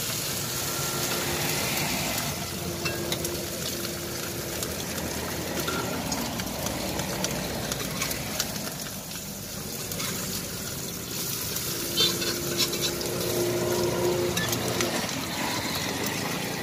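Eggs and burger buns frying in oil on a flat steel griddle, a steady sizzle, with a metal spatula clicking against the pan a few times about two-thirds of the way in.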